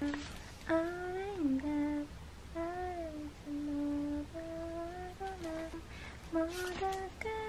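A woman humming a tune to herself: a string of short gliding notes, ending on one long held note near the end. A few faint clicks come just before the held note.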